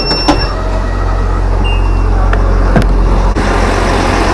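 Steady low rumble of a passenger train standing at a platform with its doors open. The door-warning beeps stop about half a second in, and the rushing noise gets louder from about three seconds in.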